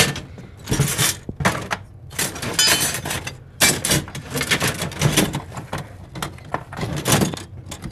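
Loose pinball machine parts clattering and clinking as they are rummaged through in a parts bin, in several separate bursts of rattling with brief metallic ringing.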